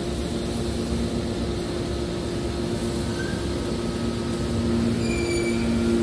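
Hydraulic scrap-metal baler running: its hydraulic power pack gives a steady low hum. A brief high squeal comes in about five seconds in.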